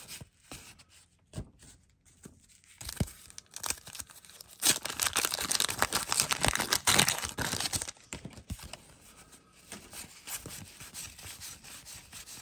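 Wax-paper wrapper of a 1989 Donruss baseball card pack being torn open and crinkled, loudest for about three seconds in the middle. Softer rustling and clicking of cards being thumbed through comes before and after.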